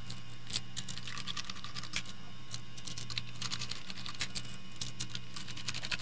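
Many small, quick clicks and taps from hands working a screwdriver and handling the laptop's hard drive, over a low steady hum.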